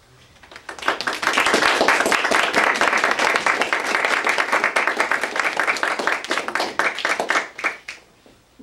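Small audience applauding: many hands clapping, starting about a second in and dying away to a few last claps near the end.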